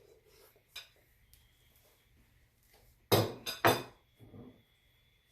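Fork knocking against a plate: a faint clink about a second in, then two loud knocks close together about three seconds in and a softer one just after.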